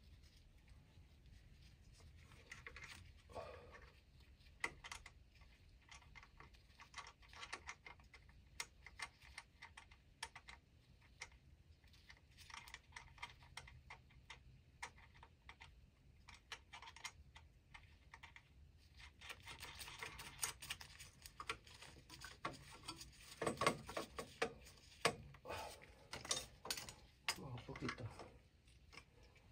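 Faint, scattered clicks and light metallic clinks of hand tools and parts being handled while an oil burner is reassembled. The clicks grow busier in the last third.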